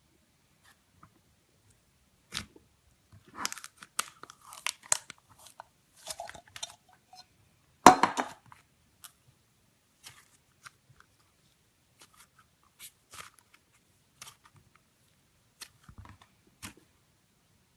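Slime being squeezed and worked by hand: scattered sticky clicks and pops, with bunched crackling between about three and seven seconds in and a louder burst of crackling about eight seconds in, then a few isolated pops.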